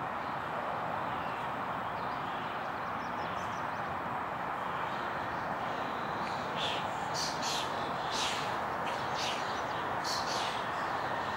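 Steady outdoor background noise, such as distant city traffic heard in a park, with a handful of short, high, crackly sounds in the second half.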